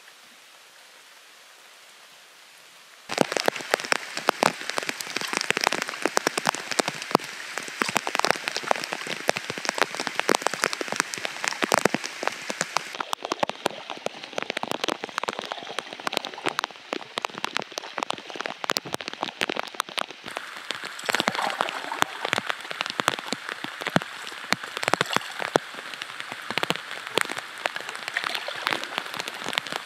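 Steady rain: a soft hiss for the first three seconds, then, from about three seconds in, a dense close patter of raindrops striking nearby.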